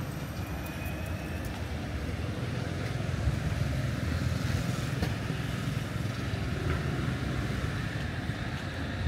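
Steady low rumble of road traffic passing, swelling a little a few seconds in.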